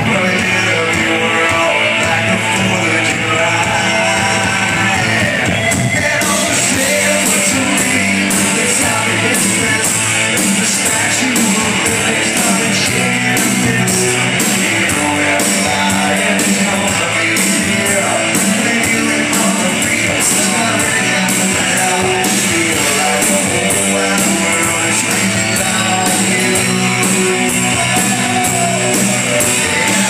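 Live rock band playing a song: electric guitars over a drum kit, with steady drum and cymbal strokes.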